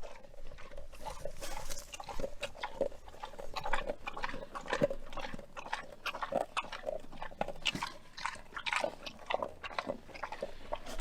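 A pig grunting close by, with a dense run of short, irregular clicks and smacks.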